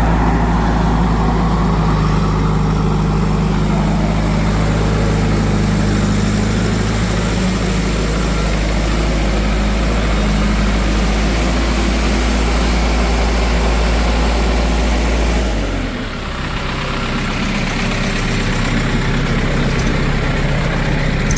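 Heavy diesel engine running steadily. About sixteen seconds in, its note drops and settles lower.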